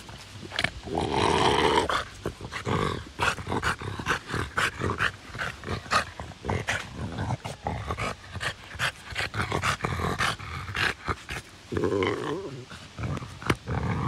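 French bulldog vocalising while teased with a stick: a loud drawn-out call about a second in, then a long run of short, quick grunts and yelps, and another drawn-out call near the end.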